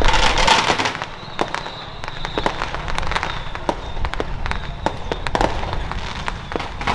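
Firecrackers going off in scattered single cracks, more than a dozen at irregular intervals, after a louder, dense wash of noise in the first second.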